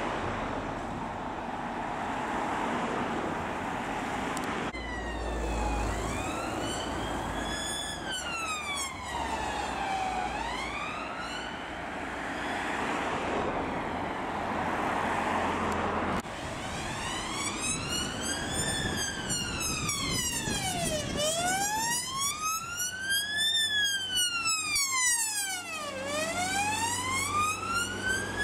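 Road traffic noise, then UK emergency vehicle sirens on a slow wail, rising and falling over and over: a police van's siren from about 5 seconds in, then an ambulance's siren after a sudden cut at about 16 seconds.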